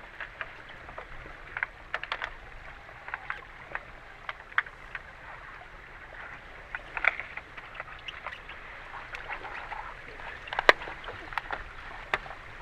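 Underwater hockey heard from underwater: a steady watery hiss broken by many sharp clicks and clacks of sticks and puck against the pool floor, one loud knock near the end.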